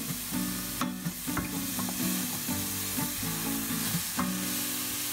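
Cauliflower rice frying in oil in a stainless steel pot, sizzling steadily while it is stirred with a wooden spoon, with a few sharp knocks of the spoon against the pot. Soft background music plays underneath.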